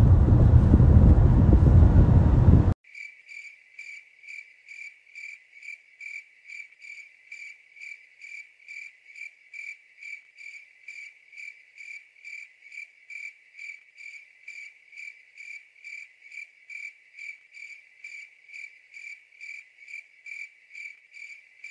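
Car interior road and engine noise at highway speed, which cuts off abruptly about three seconds in. Then steady cricket-like chirping takes over, about two chirps a second and very regular, over otherwise dead silence.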